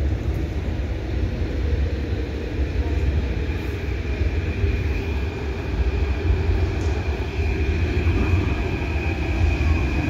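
Athens metro line 3 train approaching through the tunnel into an underground station: a steady low rumble, with a high wheel whine that grows stronger over the second half as the train nears the platform.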